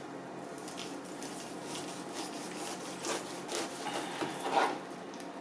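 Kitchen knife sawing down through a pineapple's rind in a run of short rasping strokes, loudest near the end as the strip of peel comes away.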